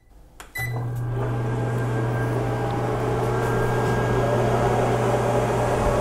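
Sharp microwave oven beeps as it is started, and about half a second in begins running with a loud, steady low hum and fan noise. It is heating at its 1000 W setting, drawing close to 1,490 W.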